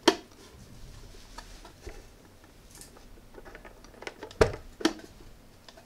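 Handling noise from a small wooden-framed box with an acrylic front panel: a sharp click right at the start, then two sharp clicks about half a second apart near the end.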